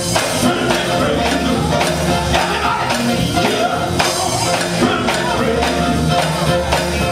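Live gospel band music: electric guitars, bass and a drum kit playing with a steady beat, with a lead singer.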